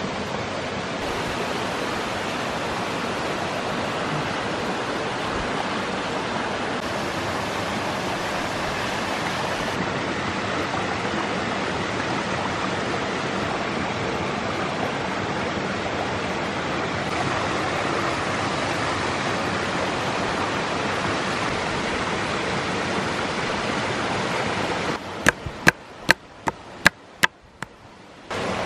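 Steady rushing of a mountain stream. Near the end the water noise drops away and about seven sharp knocks follow in quick succession: a knife chopping on a wooden cutting board.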